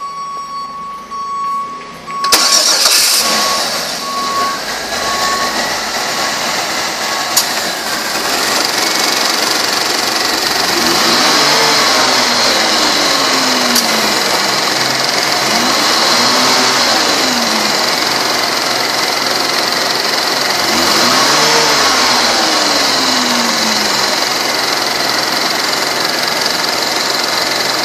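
A car's warning chime beeps for about two seconds, then a 2005 Chevrolet Malibu's 3.5-litre 3500 V6 cranks and starts. It settles to a steady idle and is revved up and back down three times.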